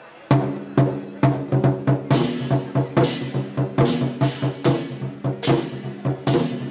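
Chinese war drums (zhangu) beaten by a drum troupe, starting a fraction of a second in with a loud stroke and going on in a fast, uneven pattern of heavy, resonant hits. From about two seconds in, bright ringing crashes sound over the drum strokes.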